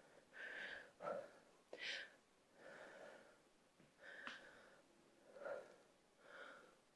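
Faint breathing from a woman exercising, about seven short, hard breaths roughly a second apart as she works through the lunges.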